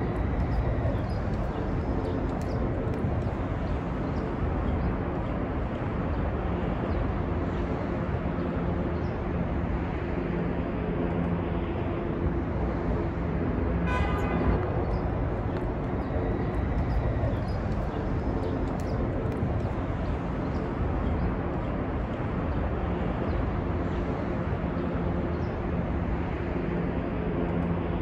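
City street ambience: a steady wash of traffic noise with the low hum of passing engines. One brief high-pitched chirp comes about halfway through.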